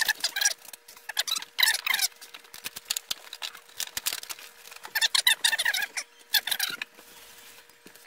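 Rustling and scraping in several short bursts as raw quail are tossed with dry rub by hand in a stainless steel mixing bowl.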